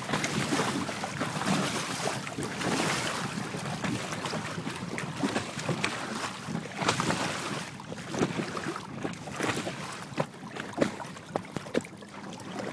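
Wind buffeting the microphone over choppy open water, with short slaps and splashes of waves that come more often in the second half.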